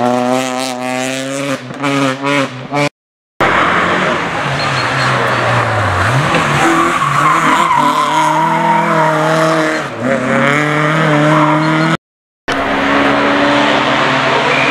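Rally cars' engines revving hard through a hairpin, one car after another, the engine pitch falling and climbing again as they brake and accelerate, with tyre squeal as a car corners. The sound drops out completely twice for a moment between cars.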